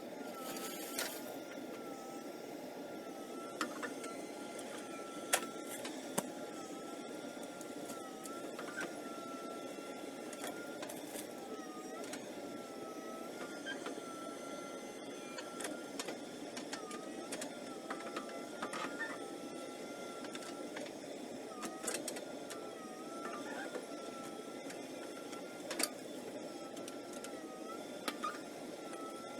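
JCB backhoe loader running steadily as it digs, with a high whine that dips briefly about every two seconds and a few sharp knocks scattered through it.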